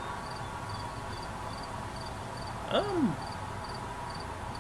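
Insects chirping in a steady rhythm, short high-pitched pulses about twice a second. About three seconds in, a brief voice-like sound rises and then falls in pitch.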